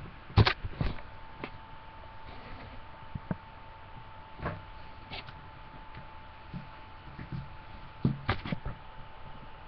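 Scattered knocks and bumps from a person moving about right in front of a webcam, loudest near the start and again near the end, over a faint steady high tone.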